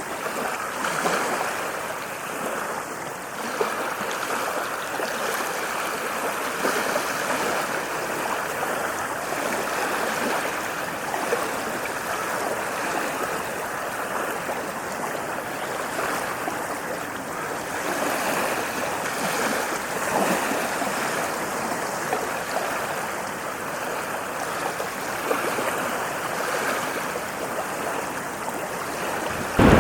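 Small ocean waves lapping and washing on a shore, a steady rush of water with only slight swells.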